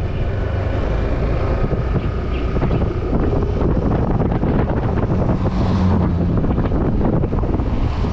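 Steady wind rush buffeting the microphone of a moving motorcycle, mixed with the bike's running noise.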